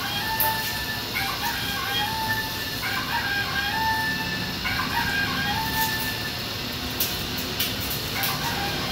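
Toy chicken giving out short crowing and clucking calls, again and again, with a few sharp clicks in between.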